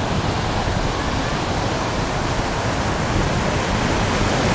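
Sea surf breaking and washing up on a sandy beach, a steady rushing noise.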